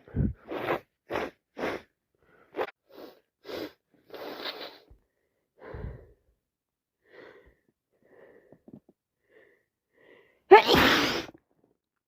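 A person with a head cold sneezing: a quick run of short sneezing bursts in the first few seconds, then soft breaths, then one loud, full sneeze about ten and a half seconds in.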